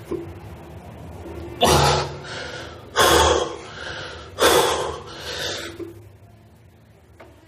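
A man breathing hard while doing push-ups: three loud voiced gasps about a second and a half apart, each followed by a softer breath, then a quieter stretch near the end.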